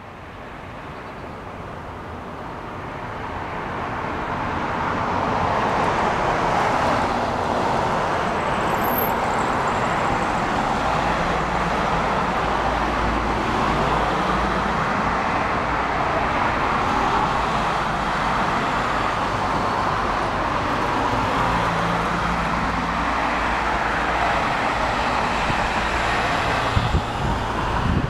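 Steady road traffic noise from passing cars, building over the first few seconds and then holding level.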